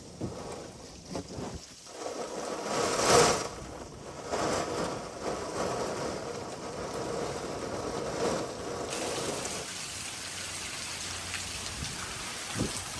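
Heavy rain from a hurricane, heard as a steady noise, with a loud burst about three seconds in. From about nine seconds on it turns to an even, hissing downpour.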